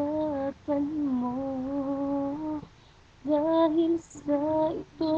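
A woman singing a slow song unaccompanied, holding long, slightly wavering notes in short phrases with brief pauses for breath.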